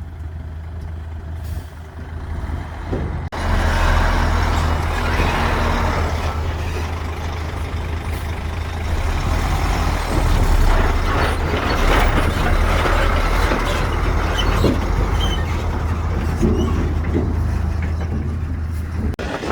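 Heavy diesel construction machinery running with a steady low drone, which becomes suddenly louder and fuller about three seconds in, with occasional knocks and clanks.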